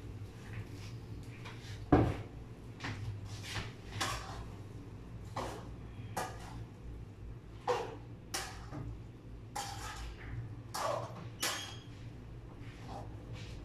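Spatula scraping and knocking against a wok while stir-frying, in short irregular clatters about once a second, the loudest about two seconds in.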